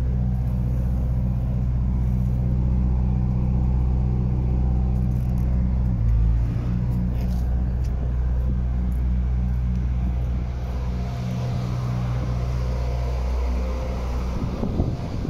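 A steady low engine hum runs throughout, its pitch stepping slightly about six seconds in. Near the end, wind buffets the microphone.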